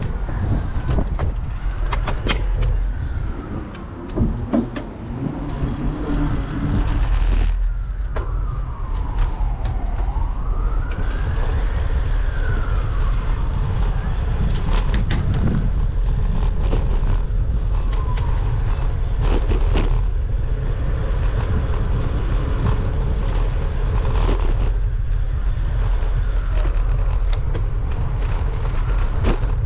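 An emergency vehicle's siren wailing, its pitch slowly rising and falling over several seconds at a time, fading later on. Under it runs a steady low rumble of wind on the microphone.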